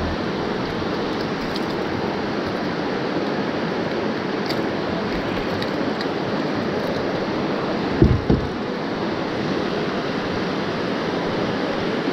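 Steady rush of river water running over rocks, with a brief low thump about eight seconds in.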